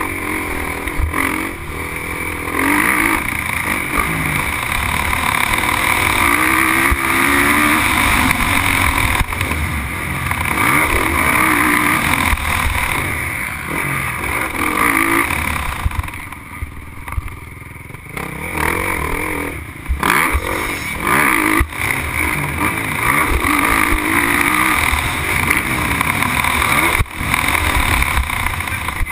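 Motocross bike engine heard from a camera mounted on the bike, revving up and down as the rider accelerates out of corners and along the straights. About halfway through the throttle comes off and the engine drops away for a couple of seconds before picking up again.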